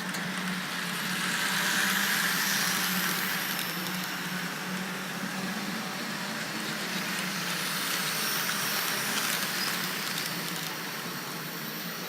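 H0-scale model tram running on the layout track: a steady whirr of its small electric motor and wheels on the rails, louder about two seconds in as it passes close, then easing off.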